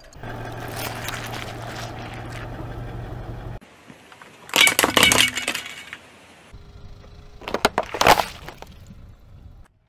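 A car tyre rolling over and crushing brittle plastic objects. A crackling grind runs over a low steady car hum for about three and a half seconds, then there is a loud burst of sharp cracking about five seconds in, and another cluster of cracks near the end.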